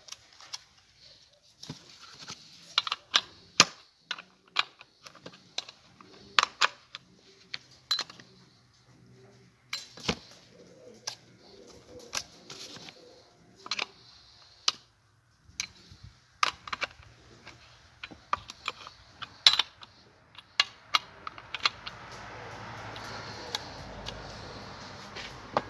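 Saw chain on a Stihl MS 500i being pulled by hand around the guide bar: irregular metallic clicks and rattles of the chain links. A soft rushing noise builds over the last few seconds.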